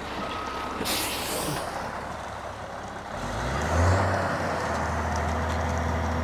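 Concrete mixer truck: its backup beeper sounds in the first second, then a short air hiss. About three seconds in the diesel engine revs up and holds at a steady higher speed.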